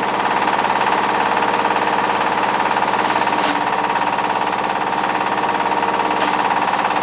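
Bark hammermill driven by a 22 hp Changchai single-cylinder diesel engine, running steadily while grinding dry spruce and hemlock bark into fine sawdust, with a steady hum. Two brief sharper clatters come about three seconds in and just after six seconds.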